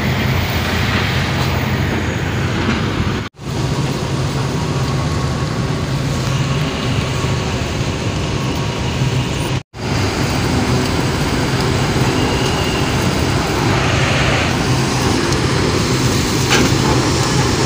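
Tractor diesel engines and sugar-mill machinery running steadily, a dense constant noise over a low hum. It breaks off twice for a split second.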